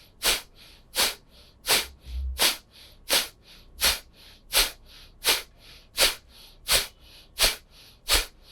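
Kapalabhati pranayama breathing: about a dozen short, forceful exhalations through the nose at an even pace of roughly one every 0.7 seconds, with quiet passive in-breaths between them.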